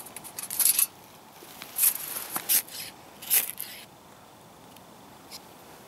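Ferro rod struck with a metal scraper over a brass alcohol burner to light the fuel: four short rasping strikes in the first four seconds.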